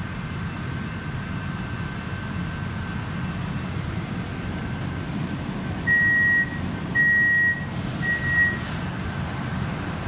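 Steady low hum inside an X'trapolis 100 electric train carriage standing at a platform. About six seconds in come three high beeps, the door-closing warning before departure, with a short hiss near the third beep.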